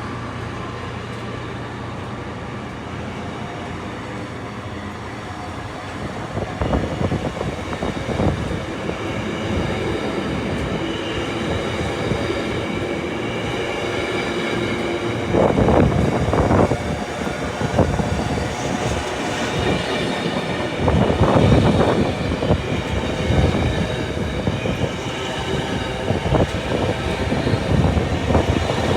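A train rolling past on the line, its wheels clattering rhythmically over the rail joints, with a steady rumble underneath and louder stretches around the middle and later on.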